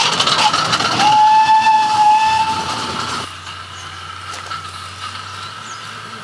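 Ride-on miniature railway train running with a fast, even clatter, then its whistle sounding one steady high note for about two seconds. A little over three seconds in, the sound drops abruptly to a quieter background with a low hum and faint bird chirps.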